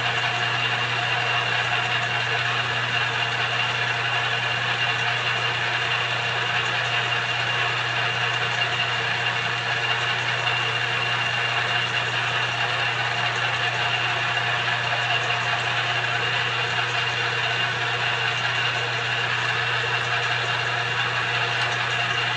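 Small Chinese-made multi-purpose bench lathe running steadily, its motor and drive giving a low hum with a fainter, higher whine.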